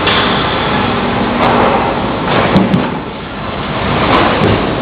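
Sawmill board edger with a gang of movable circular saws, running loud as a board is fed in and ripped to width, over the steady din of conveyor rolls. A few sharp knocks come about two and a half and four seconds in.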